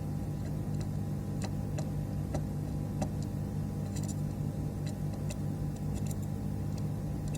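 Steady low electrical hum with faint, irregular light ticks during hand soldering of SIM card connector pins on a circuit board.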